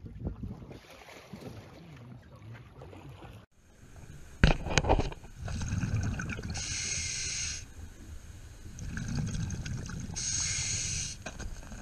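Scuba diver breathing underwater through a regulator: two breath cycles about four seconds apart, each a rumble of bubbles with a hiss from the regulator. Before this comes low steady noise on the water's surface, then a loud knock as the sound changes to underwater.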